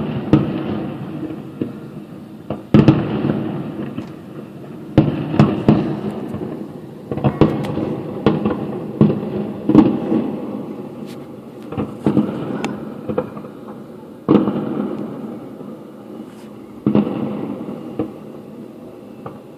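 Aerial fireworks show: a string of booming shell bursts every second or two, each trailing off in a rolling rumble, with sharp crackling pops in between.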